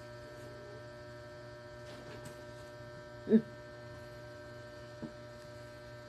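Steady electrical hum made of several constant tones. About halfway through, one short low sound that rises and falls in pitch, like a brief voice murmur.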